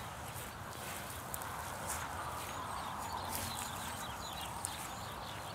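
Steady outdoor background hiss with a few faint high bird chirps and occasional soft steps on grass.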